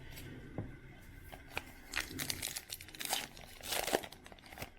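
Crinkling and tearing of a trading-card pack's foil wrapper as it is ripped open and handled, in a run of irregular crackles, busiest in the second half.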